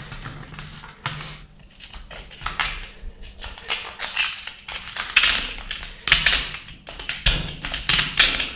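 Metal tool scraping and scratching at mineral scale inside a water pump's cast housing, in quick irregular strokes.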